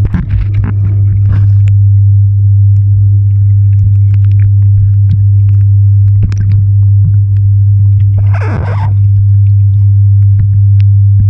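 Loud steady low hum of a pool skimmer's suction, heard underwater close to the modified skimmer intake as it draws a vortex down the tube, with scattered clicks and a brief watery rush about eight and a half seconds in.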